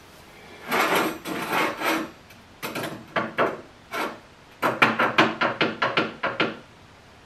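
Motorcycle sprocket rocked and pressed against a metal bench top, giving a series of metallic clacks that come quickly for the last two seconds. It is being checked for flatness.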